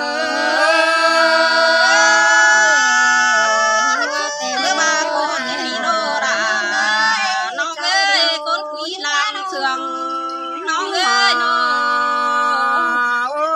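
Unaccompanied singing of a Thái folk song by a small group of men and women, with long held, wavering notes and short breaks between phrases.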